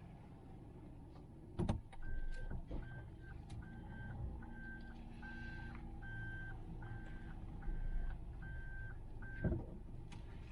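A car's reverse-gear warning beeper sounding about ten even, steady-pitched beeps, a little more than one a second, over a low engine rumble. A sharp knock comes just before the beeps start and another as they stop.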